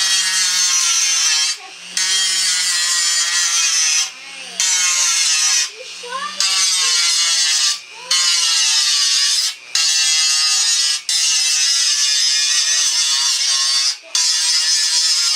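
Small high-speed electric rotary tool whining as it cleans up tin toy-plane parts, running in stretches of one to three seconds with brief drops between and its pitch wavering as it bears on the metal.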